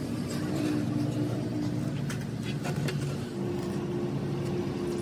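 Motor vehicle engine running steadily, giving a constant low hum, with a few light clicks about two seconds in.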